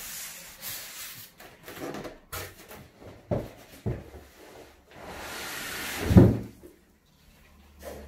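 Polystyrene packing pieces and cardboard being handled while unboxing a TV: scraping and rustling, two knocks in the middle, then a longer scrape ending in a loud thump about six seconds in.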